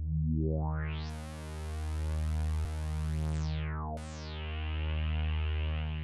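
Sugar Bytes Cyclop software synthesizer holding one low bass note while its filter cutoff is moved by the wobble knob's LFO. The tone brightens over about a second, holds, darkens just before the 4-second mark, then snaps bright and settles at a middle brightness, with a small click near the middle and the volume swelling and dipping twice.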